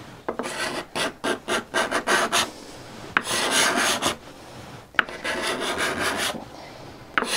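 Steel card scraper scraping a hardwood board: about eight quick short strokes, then two longer strokes and a third starting near the end. The scrape has a screeching edge.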